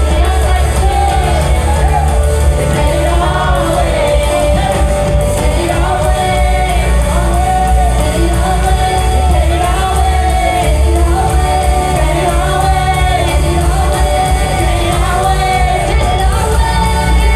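Praise-and-worship music: singing voices in repeated melodic phrases over a band with a heavy, steady bass, in a large hall.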